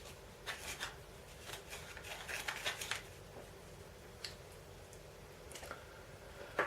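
Small clicks and rustling as the parts of a VAZ-2101 diaphragm fuel pump are handled during reassembly: a quick run of light clicks in the first three seconds, then a few single clicks.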